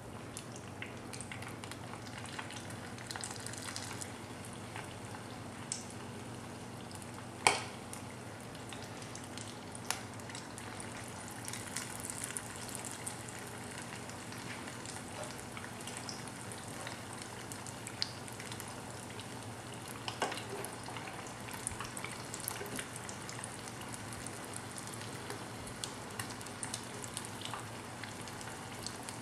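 Spring rolls deep-frying in oil at 350 degrees: a steady crackling sizzle with many small pops. Two sharper clicks stand out, about a quarter of the way in and again about two-thirds in.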